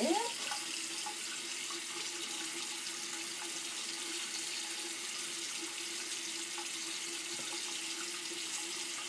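Bathroom sink tap running steadily into the basin, with a constant hum under the hiss of the water.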